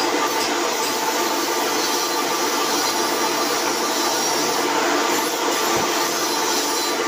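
Electric motor of a pillar drill press running steadily with a constant hum and whine, not cutting.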